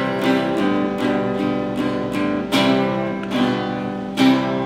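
Acoustic guitar strummed in chords, the instrumental intro before a song's first sung line. Each stroke starts sharply and rings on, with the strongest strokes about two and a half seconds in and again near the end.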